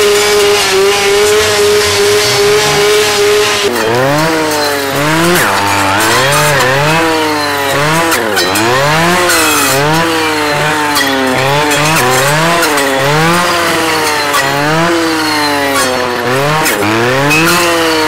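Clearing saw (brush saw with a circular blade) running at steady high speed, then from about four seconds in its engine pitch dips and rises again and again as the blade cuts through saplings and brush.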